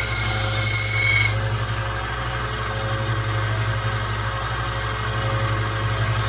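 1x30 Rikon belt sander running with a 1,000-grit belt. For about the first second a knife blade is ground against the belt with a high hiss, then the motor runs on alone with a steady hum.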